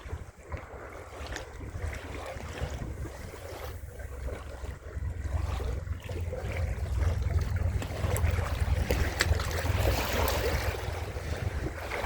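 Wind buffeting the microphone over the wash of waves on a shore, getting louder about halfway through.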